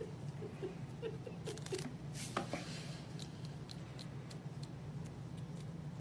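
Kitten nibbling and biting a crunchy cheese puff: soft, irregular crunching clicks, a few of them close together about a second and a half in.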